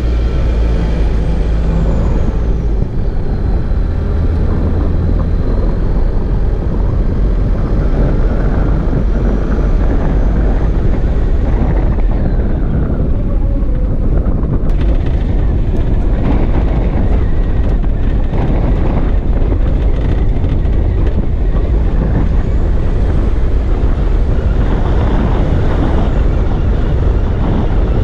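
Loud wind noise on the microphone and low rumble from a camera mounted on the outside of a 4WD driving along dirt tracks.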